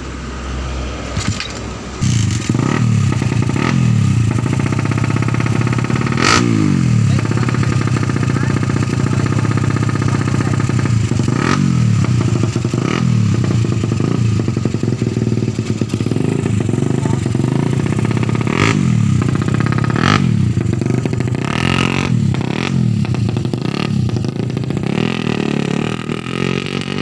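Suzuki Satria FU 150 cc DOHC single-cylinder four-stroke engine fitted with two 'X' camshafts, revved again and again in quick rising blips and then ridden away. Its note is like that of a bike with reground camshafts.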